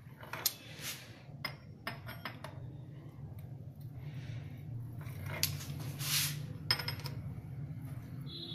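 Rotary pizza cutter rolling through thin rolled dough onto a stone countertop: a few short scraping strokes and sharp clicks as the metal wheel meets the stone, over a low steady hum.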